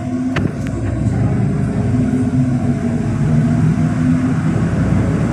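NefAZ 5299 city bus under way, heard from inside the cabin: a steady engine hum over road noise, growing slightly louder as it pulls. There are a couple of sharp clicks about half a second in.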